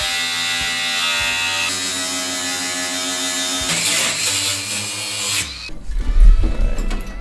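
Angle grinder with a thin cut-off wheel slicing through a truck's sheet-metal body panel: a steady high motor whine whose pitch shifts as the wheel bites, stopping about five seconds in. Then a run of low thumps and rattles as the cut piece of panel is worked loose by hand.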